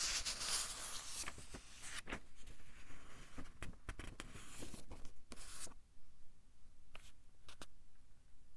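Pages of a thin-paper book being turned by hand: papery rustling in long sweeps in the first half, then a few light paper ticks near the end.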